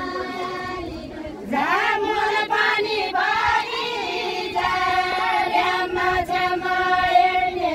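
Women singing a Deuda folk song, with long drawn-out notes; a louder phrase begins with an upward slide about one and a half seconds in.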